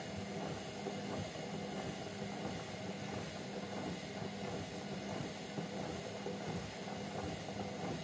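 Hotpoint Ariston front-loading washing machine in its wash cycle: the drum turning, with sudsy water and laundry sloshing inside over a steady motor hum.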